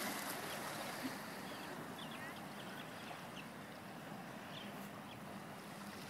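Small waves lapping and washing against shoreline rocks, a steady wash of water.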